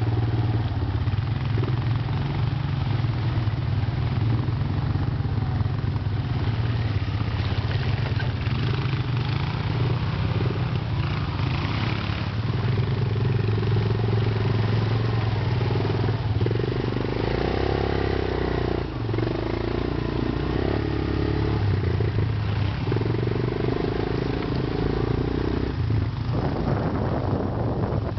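ATV (quad bike) engine running close by while riding, a steady hum whose pitch shifts a few times midway as the throttle changes.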